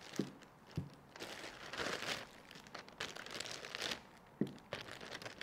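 Crinkling and rustling of disposable supplies being handled and crumpled, with a few light knocks.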